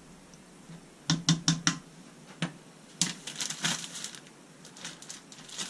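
Four quick clicking taps about a second in, then a plastic frozen-vegetable bag crinkling and crackling as it is handled, from about three seconds in.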